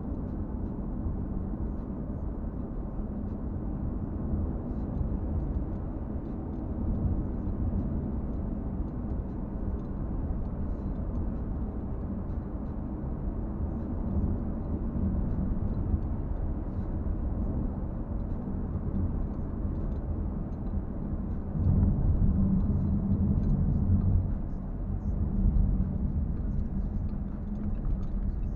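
Car driving: a steady low rumble of engine and road noise. It grows louder for a couple of seconds about 22 seconds in.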